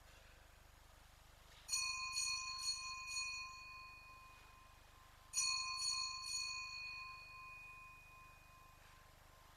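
Small altar bells rung in two short peals about three and a half seconds apart, each a quick run of strikes that rings on and fades.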